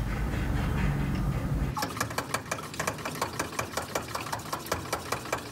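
Motive brake pressure bleeder being pumped up by hand to pressurise the brake system: a fast, even run of clicks, about six a second, starting after a low rumble in the first second and a half.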